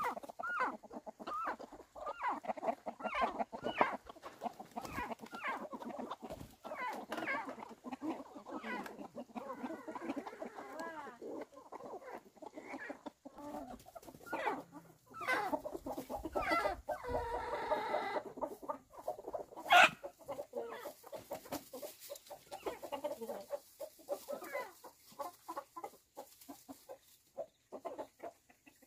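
Flock of chickens clucking and calling in short overlapping calls, with one longer drawn-out call a bit past the middle. A single sharp click comes soon after it and is the loudest sound.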